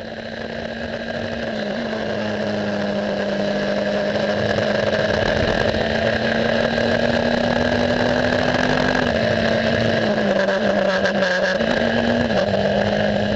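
Racing car engine running at near-steady revs, a continuous drone that fades in over the first few seconds and shifts a little in pitch now and then.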